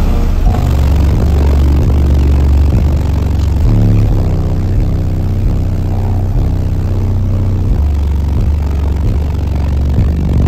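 Bass-heavy music played loud through a car audio system's subwoofers. Deep bass notes change pitch every second or so.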